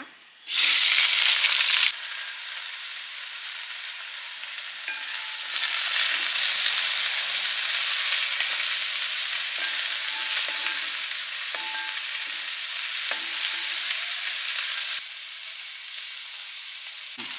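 Chopped onions, shallots and green chillies hitting hot coconut oil in an uruli with a sudden loud sizzle about half a second in, then frying steadily as a wooden spatula stirs them. The sizzle eases about two seconds in and grows louder again from about five seconds until near the end.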